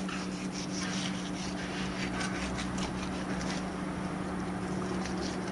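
Kitchen knife cutting along the back of a Japanese sea bass, a run of faint irregular scratchy ticks as the blade scrapes through the skin and over the backbone while filleting, over a steady low hum.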